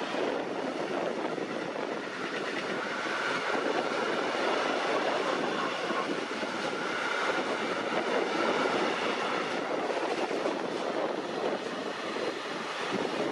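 Freight train of covered coil wagons and container flat wagons rolling past, a steady noise of wheels on rail, with a faint high whine for several seconds in the middle.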